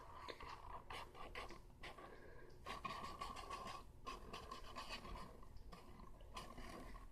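Blue Sharpie marker drawing on cardboard: a quiet run of short scratchy strokes.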